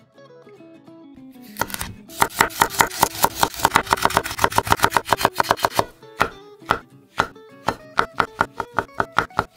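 Kitchen knife chopping on a wooden cutting board. First comes a fast, even run of about eight strokes a second dicing carrot, then from about six seconds in slower, separate cuts slicing shiitake mushrooms. Acoustic guitar music plays at the start, with the chopping beginning about a second and a half in.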